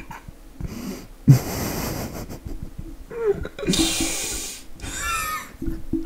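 A person's breathy, hissing vocal noises: two loud hissing exhales of about a second each, then squeaky, high-pitched wavering sounds near the end.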